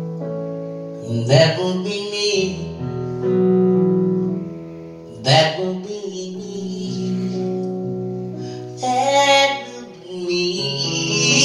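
A woman singing live to keyboard accompaniment: the keyboard holds sustained chords, and her voice comes in short phrases with gaps between them, about three times.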